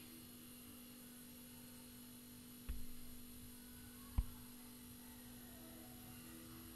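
A steady electrical hum with two short, soft knocks, one a little before the middle and one past it.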